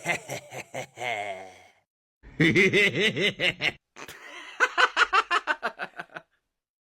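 Three bouts of laughter, each a run of short, quick, rhythmic pulses, the last bout the fastest. It stops abruptly about a second before the end.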